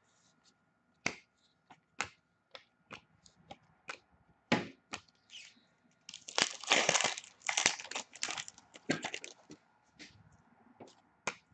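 A wrapper on a pack of hockey trading cards being handled and torn open: a string of sharp clicks and snaps, then about three seconds of dense crinkling from about six seconds in, with a few more clicks near the end.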